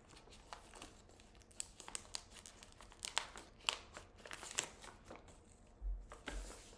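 Plastic bag crinkling and crackling as it is cut open with scissors: a run of small sharp crackles and snips that thins out near the end, with a few low bumps there.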